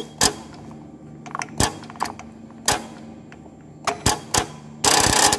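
Metallic clicks and knocks from the button clamp of a Juki LK-1903 button sewing machine as it is moved, about one a second, ending in a half-second clatter near the end, over a steady low hum from the powered machine.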